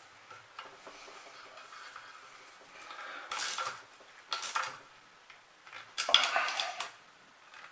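Small metal hardware and tools clinking and rattling as nuts are put on wiring terminals, in three short bursts with a faint scrape in between, the last about 6 seconds in and the loudest.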